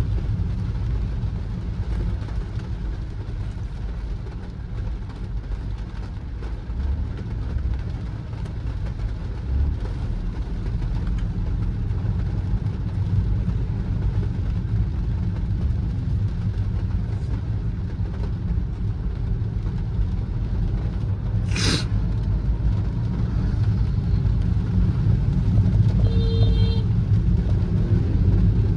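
A car driving, with a steady low rumble of road and engine noise. A sharp click comes about 22 seconds in, and a short tone sounds near the end.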